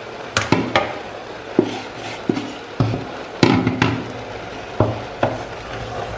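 Wooden spoon knocking against a stainless steel cooking pot as dried shrimps are stirred into simmering greens: about a dozen sharp, irregular knocks over a steady low hiss.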